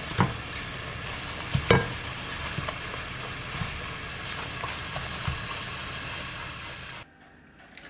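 Samosas deep-frying in a pot of hot oil, sizzling steadily, with a couple of light knocks in the first two seconds. The sizzle cuts off suddenly about seven seconds in.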